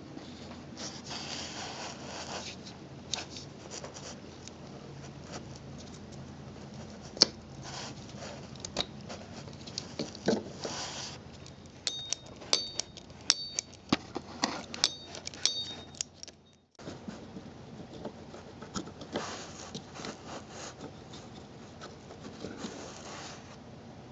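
Hand work on the transmission's output speed sensor: scraping, rubbing and scattered clicks of metal and plastic, with a run of sharp, ringing ratchet clicks in the middle as a socket wrench turns the sensor's 8 mm hold-down bolt.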